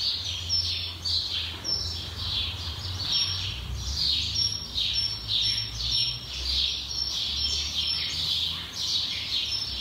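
A bird chirping over and over, short high chirps that fall in pitch, about two a second, over a low steady hum.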